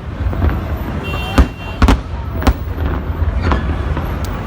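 Fireworks display: several sharp bangs, a second or so apart, with the loudest about one and a half seconds in, over a continuous low rumble.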